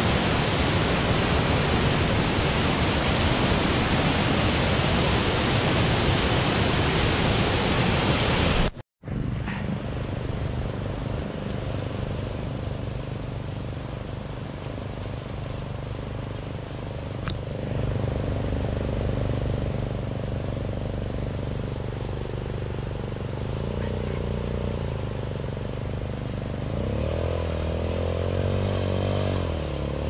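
A small waterfall rushing into a pool for about nine seconds, then after a sudden cut a motorcycle engine running steadily, growing louder and rising and falling in pitch over the last several seconds as it is ridden closer.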